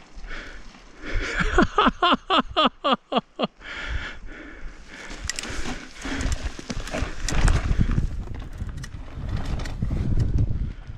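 A Trek Slash full-suspension mountain bike rolling down a loose, rocky trail: tyres crunching over gravel and stones, with rattling knocks from the bike and wind on the microphone. Early on comes a quick run of about eight short pitched pulses, before the crunching and rattling take over for the rest.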